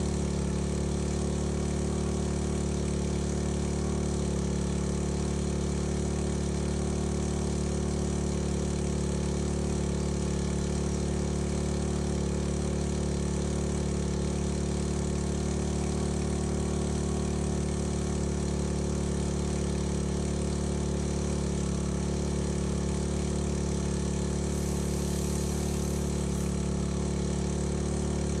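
Small engine of a portable fire pump running steadily at a constant speed, pumping water from a tank out through a fire hose.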